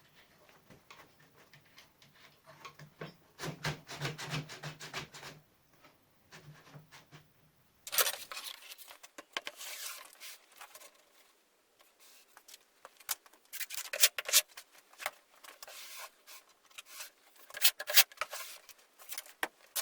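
Homemade table saw's miter guide sliding back and forth along its aluminium profile rail on fluoroplastic gaskets, a rubbing scrape with small clicks and knocks, in four separate strokes.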